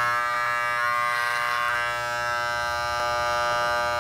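Wahl electric hair clippers running with a steady buzz while cutting hair.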